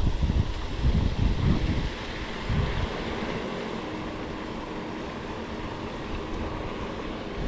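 Wind buffeting the microphone in gusts, settling after about two seconds into a steadier low rumble.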